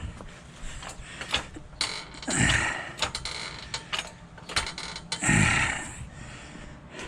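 A vehicle jack being worked to lift the rear of a Toyota Sequoia: mechanical clicks and ratcheting, with two longer creaking, straining strokes about three seconds apart.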